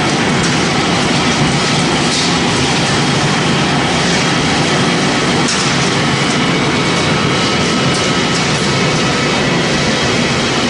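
Pellet making machine for corn stalk and sawdust running under load: a steady, loud mechanical noise with a faint rattle.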